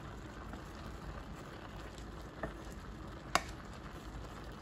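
Steady sizzling of oil frying the plov base under a layer of rice in the pan, with a sharp tap about three seconds in.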